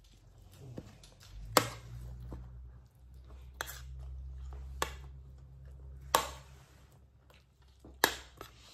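A spoon clinking against a plate five times, a second or two apart, as food is scooped up, over a low steady rumble.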